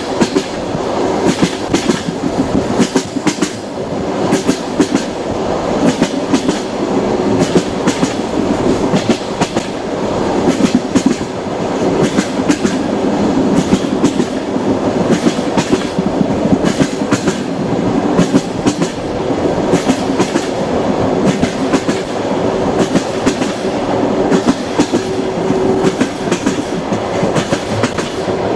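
Passenger train running on rails, heard from inside the carriage: a steady rumble with the clickety-clack of the wheels over rail joints and a faint steady hum.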